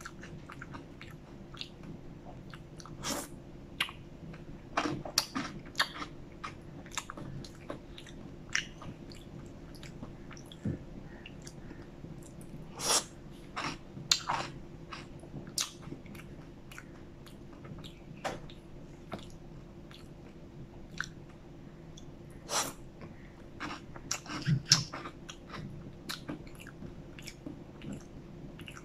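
Close-up eating sounds of a McFlurry: irregular wet lip smacks and chewing, with occasional clicks of a plastic spoon against the cup, over a faint low hum.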